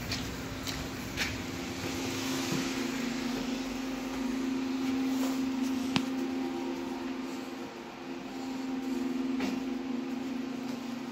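Steady electric hum of a standing Leoliner NGT W6 tram's onboard equipment, dipping briefly about eight seconds in, with a few light clicks and one sharp tick about six seconds in.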